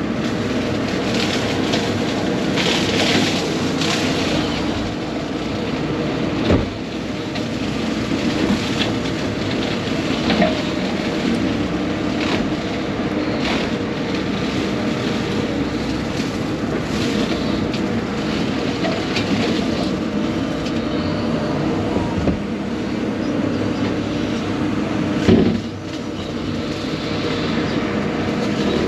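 Case excavator running steadily under work, its engine noise unbroken, with two sharp knocks, one about six seconds in and one near the end.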